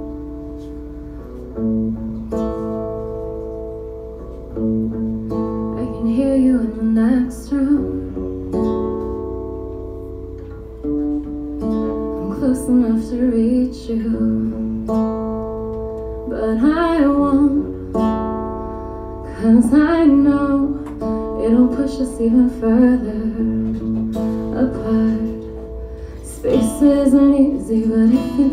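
Live acoustic pop song: a strummed acoustic guitar and held keyboard chords, with a woman singing in phrases from about five seconds in.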